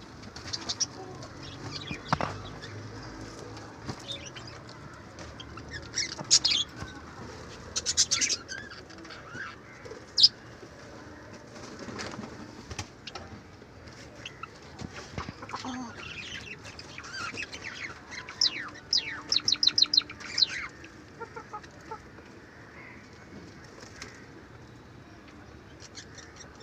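A flock of country chickens making soft calls, with scattered sharp clicks and taps and a quick run of clicks about two-thirds of the way through.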